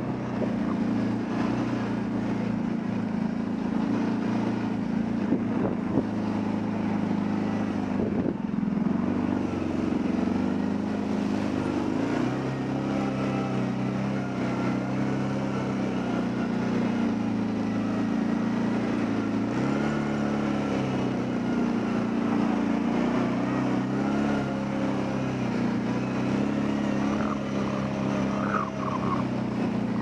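Kawasaki Brute Force 750 ATV's V-twin engine running steadily under way, its pitch rising and dipping slightly with the throttle, with one brief rise about two-thirds of the way in.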